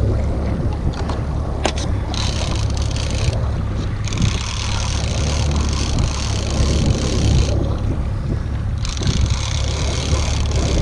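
Small boat running at trolling speed in rough seas: a steady low rumble of wind on the microphone and water against the hull, with one sharp knock a little under two seconds in.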